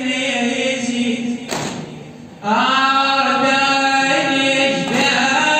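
A man's voice chanting an Arabic Husseini lament unaccompanied, in long held, ornamented notes. There is a breath and short pause about a second and a half in, before a new long note begins.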